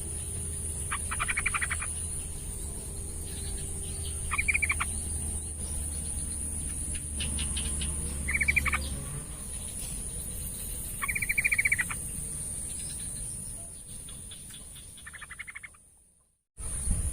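Yellow-vented bulbul (trucukan) singing: short, rapid, chattering trilled phrases, repeated about every three to four seconds, over a steady high whine. The sound fades out near the end.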